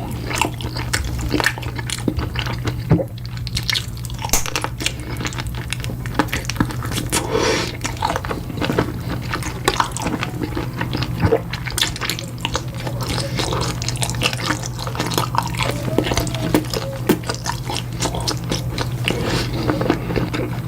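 Close-miked mukbang eating sounds: wet, saucy chewing and slurping with many small clicks of the mouth and utensils, over a steady low hum.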